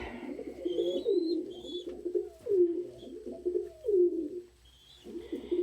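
Domestic pigeons cooing: a string of short, repeated low coos, each dropping in pitch, following one another about once a second, with a brief lull near the end.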